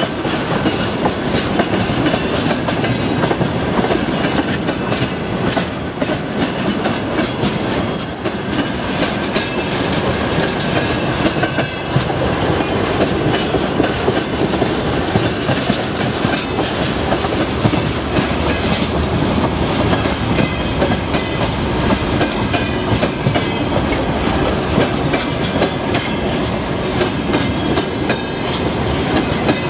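Freight train of tank cars and open gondola wagons rolling past close by at steady speed: a loud, continuous rumble of steel wheels on the rails with frequent knocks.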